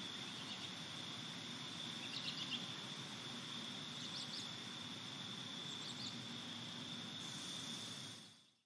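Outdoor ambience: a steady high-pitched drone with a few short bird chirps about two, four and six seconds in, fading out near the end.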